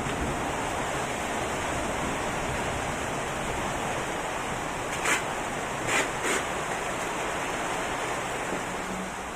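Heavy rain pouring down steadily, with a few sharp taps about five seconds in and again around six seconds.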